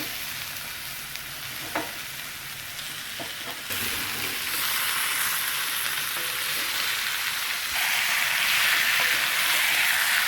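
Chicken pieces frying in hot oil with onion and tomato, sizzling as they are stirred in the pan. The sizzle gets louder in two steps, about four and eight seconds in, and there is a single sharp click near two seconds.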